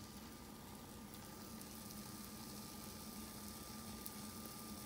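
Faint steady hiss with a constant low hum and no distinct events: room tone.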